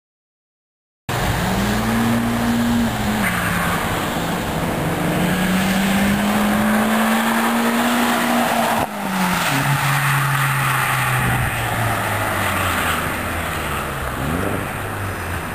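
Audi TT 1.8T four-cylinder turbo engine with a stainless-steel NAP cat-back exhaust, accelerating hard past the listener after about a second of silence. The engine note climbs, dips briefly about three seconds in, and climbs again. After about nine seconds it drops to a lower, slowly falling note as the car goes by and away.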